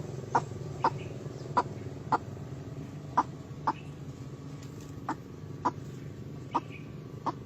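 White-breasted waterhen calling: a string of short, sharp single notes, often in pairs, about one or two a second, over a steady low hum.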